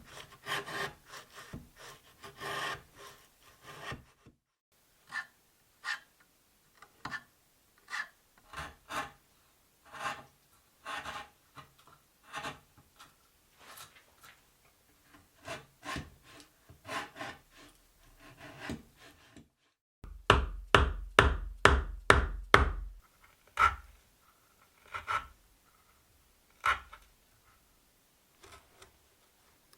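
Hand tool strokes rubbing and scraping across wood, in short separate passes. About twenty seconds in comes a quick run of about eight louder, heavier strokes.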